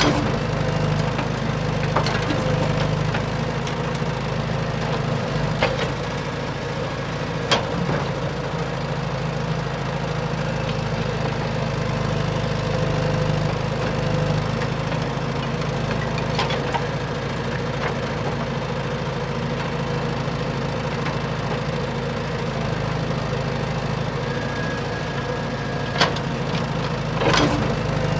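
Small electric motors of an RC excavator humming steadily as it works, with a few sharp clicks or knocks scattered through.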